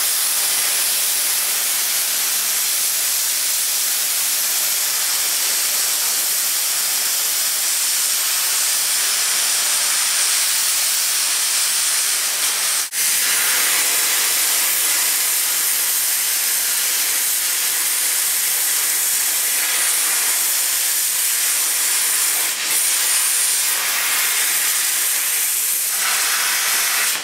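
Harbor Freight plasma cutter's torch cutting through a steel I-beam: a loud, steady hiss of the arc and air jet, briefly broken once about halfway through.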